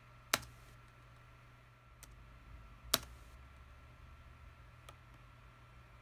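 Sharp clicks of computer input, four in all: two loud ones about a third of a second in and just before the three-second mark, and two fainter ones around two and five seconds, over a faint steady hum.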